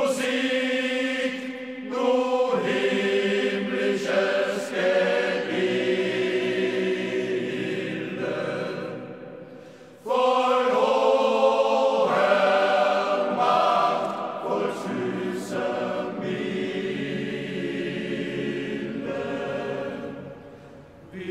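Men's choir singing in several parts, in two phrases: the first dies away, and the second comes in strongly about ten seconds in.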